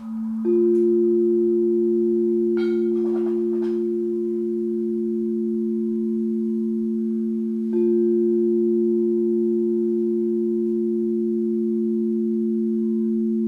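Quartz crystal singing bowls ringing in two steady pure tones, a lower and a higher one. The higher bowl comes in about half a second in and swells again just past the middle when it is struck again; a few faint clicks sound about three seconds in.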